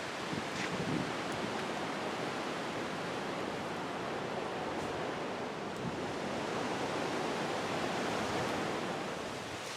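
Hurricane wind and rain making a steady, even rushing noise.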